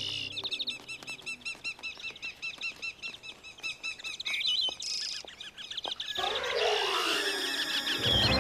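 Cartoon birds chirping: rapid, evenly repeated high chirps, several a second, for the first half. About six seconds in, a louder flurry of many overlapping rising and falling bird calls takes over.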